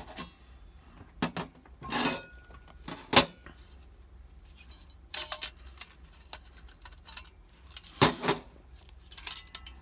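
Metal camping-stove parts (steel windscreen and stand pieces, a brass burner and its brass windscreen) clinking and knocking against each other and the table as they are picked up and set down. There are scattered knocks, the sharpest about three seconds in and a cluster near the end.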